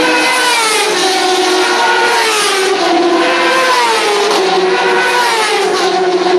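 Racing motorcycles at full throttle along the straight. Several engine notes overlap, and their pitch slides down again and again as the bikes go past.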